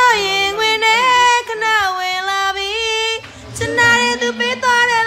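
A high voice singing long held notes with vibrato, in two phrases with a short break about three seconds in.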